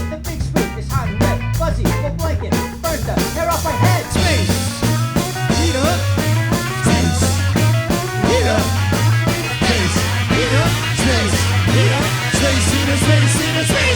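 Rock band music with a steady beat, bass and guitar, and a pitched line that wavers like a voice or lead instrument.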